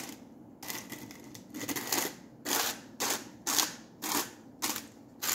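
Homemade mayonnaise being mixed by hand in its container, with a knock or rattle about twice a second.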